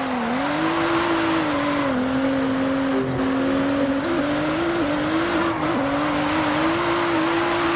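Racing car engine sound, held at a steady pitch with small wavers, over a continuous rushing noise.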